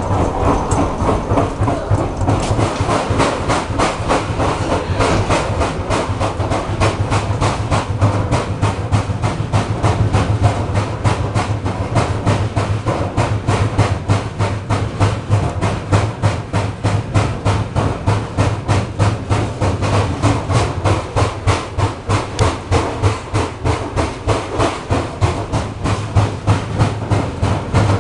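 An ER2R electric train carriage in motion, its bogie knocking rapidly and evenly at several knocks a second over a steady low hum. It is an unusual bogie knock whose cause the rider does not know.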